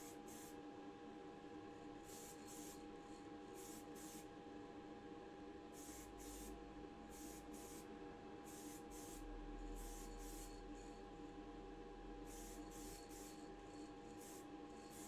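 Gloss varnish being sprayed onto the model in a series of short hisses, over a steady hum, all faint.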